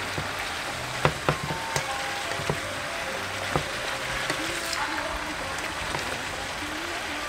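Bitter melon and beef sizzling in a nonstick frying pan while a wooden spatula stirs them, with irregular clicks and knocks of the spatula against the pan, the sharpest about a second in.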